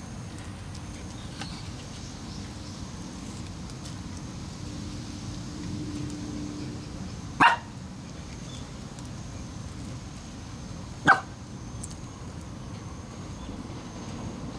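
Shiba Inu dog barking twice, two short sharp barks about four seconds apart.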